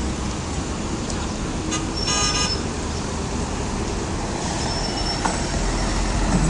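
Road traffic passing close by, a coach bus among the vehicles, with one brief car horn toot about two seconds in.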